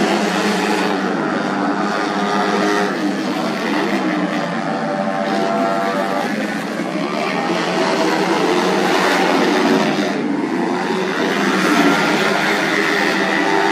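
Several tuned 130 cc automatic scooter engines racing at high revs, their overlapping pitches rising and falling as the bikes accelerate and back off.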